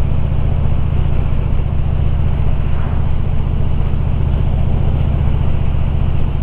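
2013 Harley-Davidson Limited's V-twin engine running steadily while the motorcycle is ridden, with a constant low rumble and road noise and no change in engine speed.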